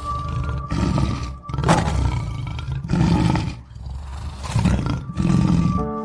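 Male lion growling over its meat in a run of about five deep, rough growls, roughly one a second.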